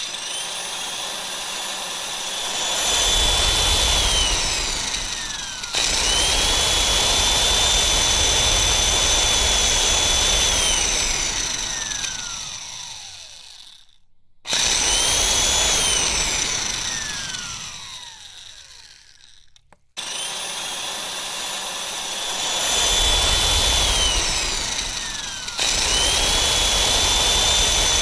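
Electric cake mixer beating batter: the motor whines up to speed, steps between speed settings, and twice is switched off and spins down with a falling whine before starting again.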